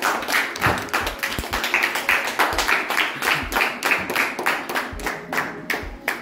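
A small group of people clapping their hands, several sharp claps a second.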